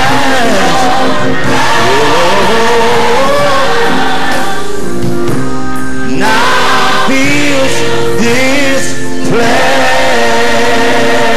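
Gospel worship singing: a man's voice sings into a microphone, bending between notes, over long held chords and a choir of voices.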